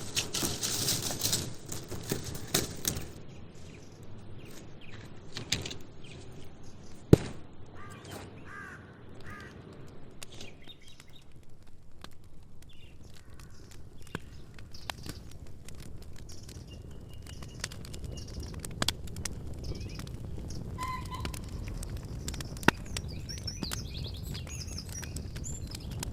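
Outdoor wood campfire crackling, louder for the first few seconds, with a few sharp pops, while birds chirp and call now and then.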